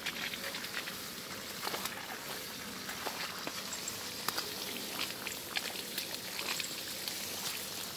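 Water from a garden hose spattering on leaves and soil: a steady hiss of spray with many scattered crackling ticks of drops and leaves.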